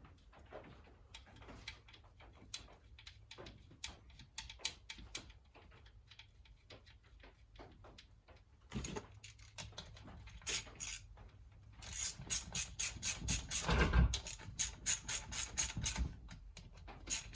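Hand ratchet clicking in quick, even strokes, about three or four a second, as the small M6 bolts of the engine's oil filter cover are run down. Before that come only scattered light ticks of tool and parts handling.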